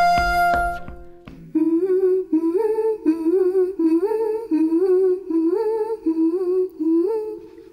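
Last piano notes ringing out, then a woman's voice humming a short upward-scooping note over and over, wordlessly.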